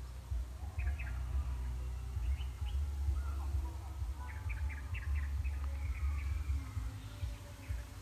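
Small birds chirping in short quick clusters about a second in, around two and a half seconds, and again between four and five seconds, over a steady low rumble.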